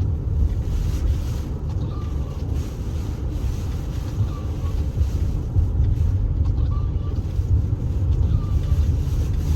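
Typhoon wind blowing hard over the microphone: a loud, steady, heavy rumble.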